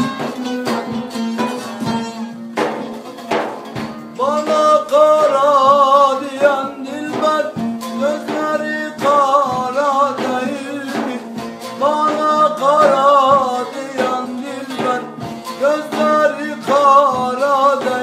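Folk music: a plucked string instrument and a drum over a steady drone. From about four seconds in, a voice sings wavering phrases, several times over.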